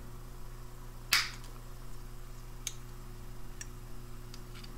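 Small flush cutters snipping through a spot-welded metal tab holding the internal shield of a 6AU6 pentode vacuum tube: one sharp snip about a second in, then a few faint clicks.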